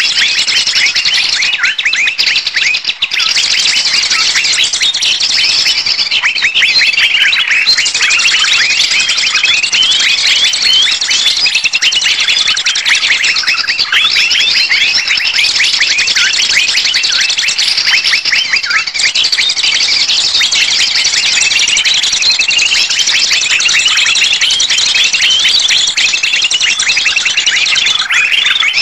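A loud, dense mix of many small birds chirping and calling at once with no break: a 'noisy birds' lure recording played to draw wild birds in for trapping.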